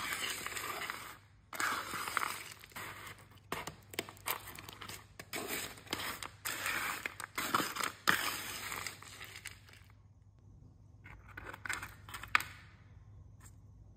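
Crunchy baked granola clusters being handled and broken apart on a parchment-lined pan: dense dry crunching and crackling that stops about ten seconds in, followed by a few lighter crackles and one sharp click near the end.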